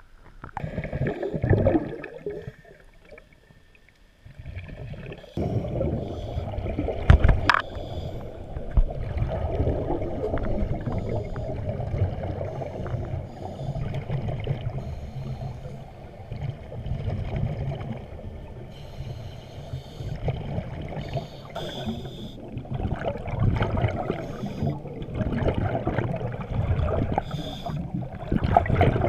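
A short rush of water about a second in. Then, from about five seconds in, muffled underwater noise heard through a camera's waterproof housing: a steady low rumble of water with the bubbling of divers' scuba regulator exhalations swelling and fading.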